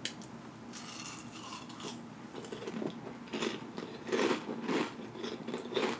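A crisp tortilla chip being bitten and chewed with mouth closed, a light crackle about a second in, then a steady run of crunches that grow louder in the second half.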